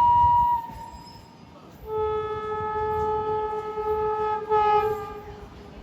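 WAP-7 electric locomotive horn: a high single-tone blast cuts off about half a second in, then after a short gap a lower, fuller horn sounds for about two and a half seconds and ends in a short, louder blast. A low rumble of the train runs beneath.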